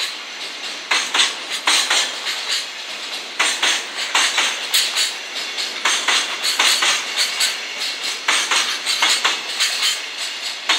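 Loaded container flatcars of a long freight train rolling past, their steel wheels clattering over the rail joints in irregular clusters of sharp clicks over a steady rolling hiss.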